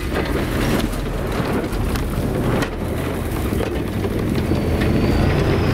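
Off-road hunting buggy driving over rough bush ground: engine running under heavy rattling and rumbling noise. A thin high whine comes in near the end.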